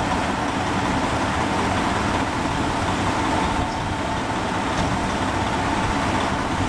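Diesel engine of a stopped semi-truck idling close by: a steady, unbroken rumble with a thin steady tone above it.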